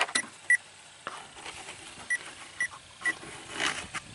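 Power Probe ECT2000 wireless receiver giving a few short, high, widely spaced beeps as it is passed along the wiring harness, picking up the test signal sent down the sensor wire. There is a rustle of hand and harness near the end.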